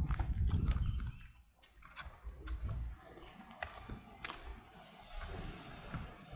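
Footsteps of a person walking on a pavement: short clicks at a steady walking pace, over a low rumble that is loudest in the first second.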